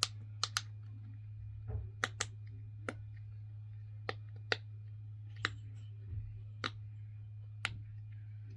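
Fidget popper toy being pressed: about a dozen sharp pops, single and in quick pairs, at an uneven pace of one or two a second, over a steady low hum.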